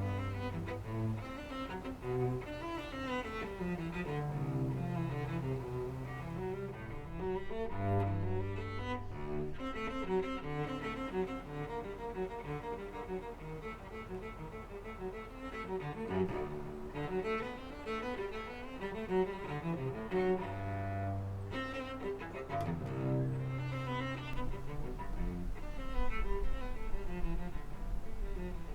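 Background music led by bowed strings, a cello with low sustained bass notes under a slow melody.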